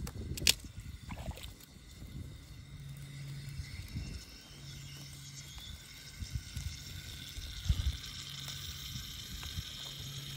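Wind rumbling on the microphone outdoors, with a sharp snap about half a second in and a few lighter knocks as dry sticks are handled and laid on a small campfire. A faint low hum comes and goes underneath.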